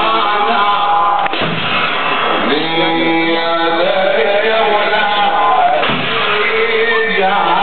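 Muharram mourning chant (latmiya): voices singing long, wavering held notes.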